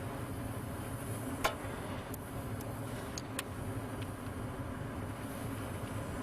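Gas furnace running in heating mode, its newly replaced inducer motor and lit burners giving a steady hum, a sign the repair has worked. There is one sharp click about one and a half seconds in, and a few lighter ticks after it.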